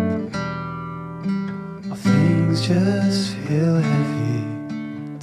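Background song with strummed acoustic guitar.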